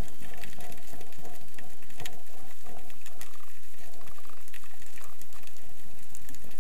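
Underwater noise picked up by a camera in its housing: a steady wash of water with many scattered clicks and crackles.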